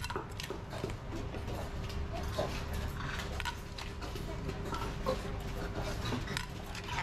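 Irregular light clicks and knocks of a pestle and a serving spoon against a large mortar as seafood papaya salad is tossed and scooped out onto a plate.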